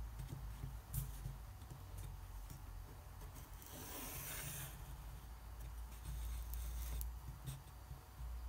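Pencil scratching on paper as it is drawn along the edge of a metal ruler, pressed hard for a heavy line, louder for about a second around four seconds in. A few light taps and clicks.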